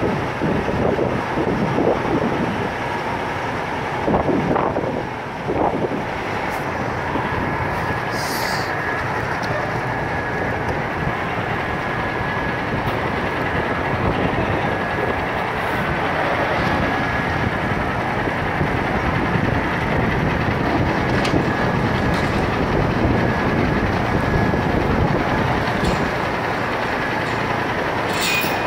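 Mini tractor engine running steadily, with a few louder surges about four to six seconds in.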